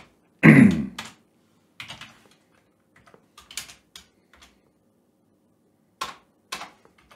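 Computer keyboard typing: scattered single keystrokes and short runs of key clicks, with a louder, duller knock about half a second in.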